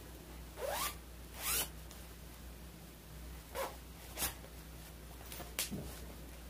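Zipper of a fabric cushion cover being pulled in short strokes: two longer zips about a second in, then several quicker ones.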